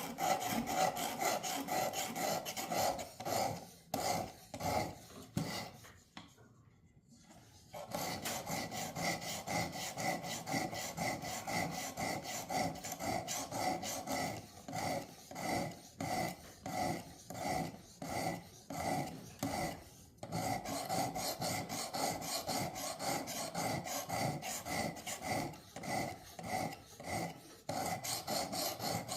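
Work Sharp guided sharpener's abrasive stone being stroked back and forth along a clamped steel knife blade: a steady rasping at about two strokes a second, with a brief pause a little after the start.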